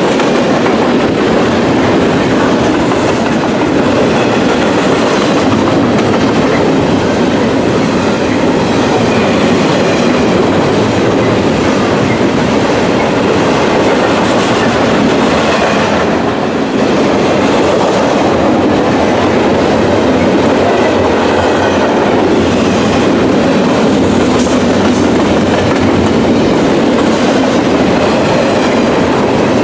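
Double-stack intermodal container train passing close by: a steady, loud rumble and clatter of its wagon wheels on the rails.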